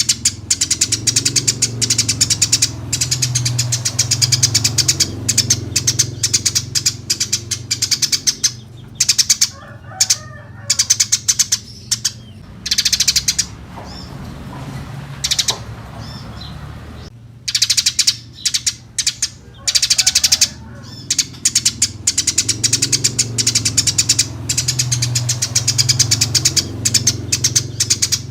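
Eurasian tree sparrows chirping in rapid, continuous runs of short calls, easing off into a quieter stretch about halfway through before the chirping picks up again.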